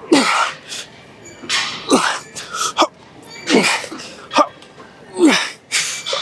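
A man grunting through a heavy set of seated machine rows: a forceful breath out with a falling grunt on each rep, four times, about one every 1.7 seconds, with quicker breaths in between.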